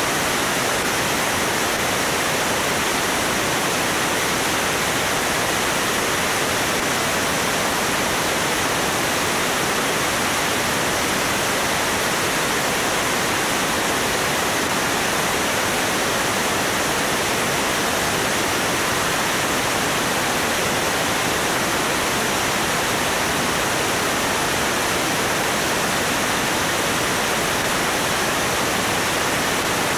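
Steady rushing wind noise from airflow at about 170 mph over a microphone mounted outside, under the wing of a Cessna 205 in flight.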